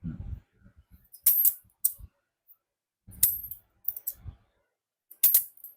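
Several sharp clicks and clinks at irregular intervals of about a second, as of small hard objects being handled or set down.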